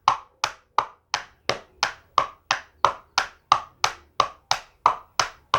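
Two plastic aerosol-can caps tapped in a steady trotting rhythm, about three clip-clops a second, imitating a horse's hoofbeats at the trot.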